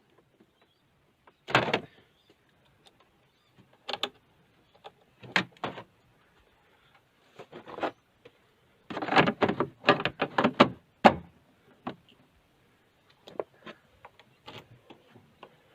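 Irregular knocks and clatters of things being handled, a few spaced apart and then a dense run of them about nine to eleven seconds in.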